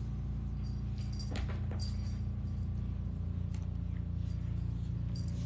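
Steady low background hum, with a few faint rustles and light clicks, most of them between one and two seconds in.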